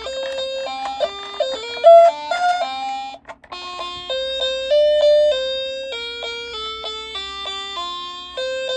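Background music: a simple melody of single held notes stepping up and down, with a brief break about three seconds in.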